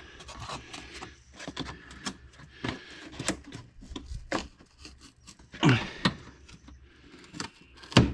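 Hands rubbing and handling the plastic cowl panel and engine-bay trim, with scattered light clicks and rustles. There are louder handling noises about six seconds in and a sharp click near the end.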